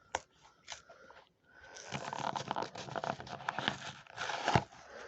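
Hot Wheels blister-card packaging being torn open by hand: a few clicks, then about three seconds of dense tearing and crinkling of cardboard and plastic, ending in a sharp snap near the end.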